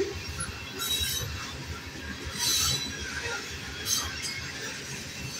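Covered hopper cars of a Kansas City Southern grain train rolling past, with a steady rumble of steel wheels on rail. Three short, high metallic bursts ring out about a second and a half apart.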